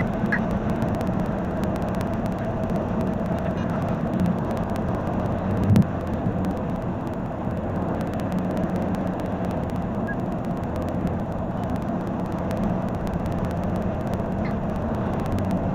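Steady car-cabin road and engine noise, an even rumble with many faint ticks. There is one short, louder thump about six seconds in.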